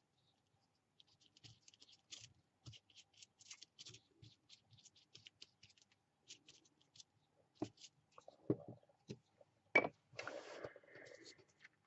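A paintbrush dabbing and scraping over black lace laid on a cardboard jigsaw-puzzle piece, a quick run of short, scratchy strokes. Near the end come a few knocks and a short rustle.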